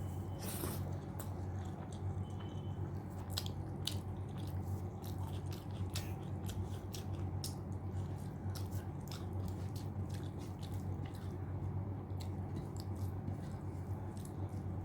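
Close-miked chewing of rice and mutton curry, with frequent wet mouth clicks and smacks at an irregular pace, over a steady low hum.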